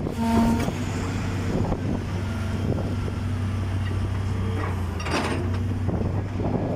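Caterpillar 966D wheel loader's six-cylinder diesel engine running steadily under load while its steel bucket works against a large stone block. A short squeal comes at the start, and a brief scrape about five seconds in.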